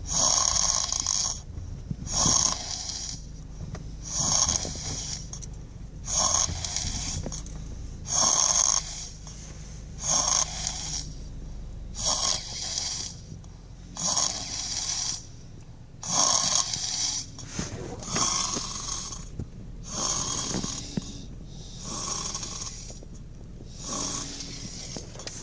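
A sleeping child snoring, one noisy snore about every two seconds, each lasting about a second, in a steady, even rhythm.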